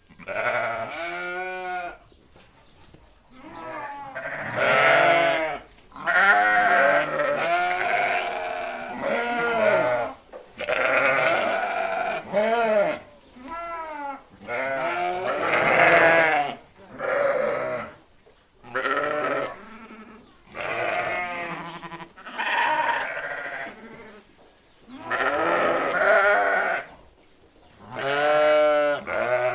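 A group of sheep bleating, with many overlapping calls of different pitches, each about a second or two long, coming one after another with brief pauses.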